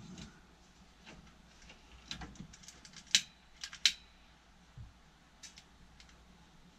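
Scattered light clicks and taps, the two sharpest about three and four seconds in.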